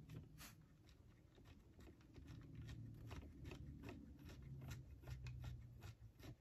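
Faint, irregular clicks and rattles of plastic Lego crane parts being handled and worked.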